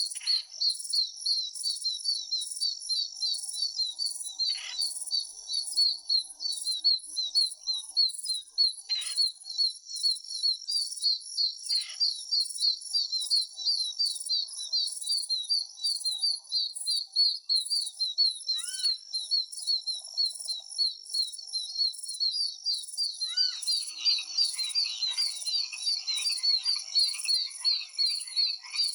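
Nature soundscape: a dense chorus of high-pitched insect chirping, repeating many times a second, with a few short bird calls every few seconds. Near the end, a lower croaking chorus of frogs joins in.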